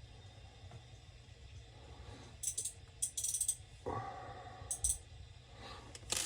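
Small metal and plastic parts of a cut-off saw's recoil starter clinking and rattling as it is taken apart by hand, in a few short bursts from midway on, with a duller knock among them.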